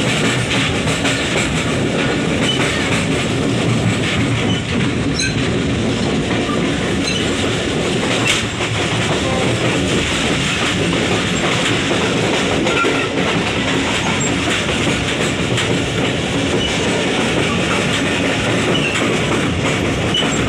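Train running steadily at speed, heard from aboard: continuous noise of the wheels on the rails and the moving carriage.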